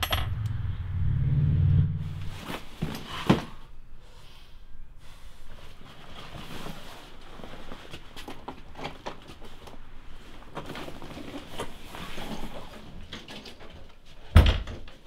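Motel room door and luggage handling: a sharp knock right at the start, a low hum-like sound over the first two seconds, a click about three seconds in, then quiet shuffling of bags and a heavy thump near the end.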